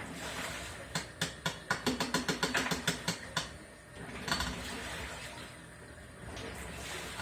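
Hitachi BeatWash BT7-TV washing machine clicking: a quick run of sharp clicks, about five a second, over two or three seconds, then a single click. The owner wonders whether this is a failing clutch or normal operation.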